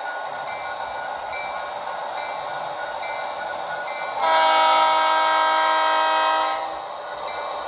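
Sound decoder in an HO-scale Athearn Genesis GP40-2 model diesel locomotive playing a steady diesel engine running sound, with one long GP40 horn blast starting about four seconds in and lasting about two and a half seconds.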